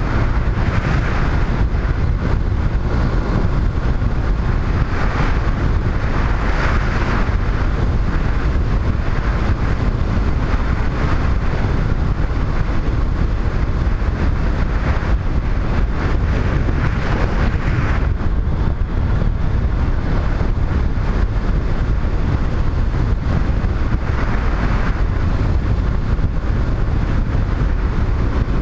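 Wind rushing over the microphone of a moving motorcycle, a steady loud rumble that swells and eases now and then, with the bike's road noise underneath.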